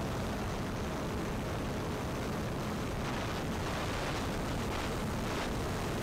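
Steady wind rush over the microphone of a camera riding on the wing of a flying electric RC Cessna 150, with a faint hum from its motor and propeller underneath.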